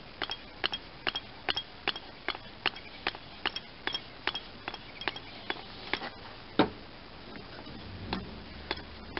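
Grease gun pumped in quick, even strokes, about three clicks a second, forcing grease into a new mower deck spindle through its grease fitting. The strokes stop about six seconds in after one louder clack, leaving only a few light clicks.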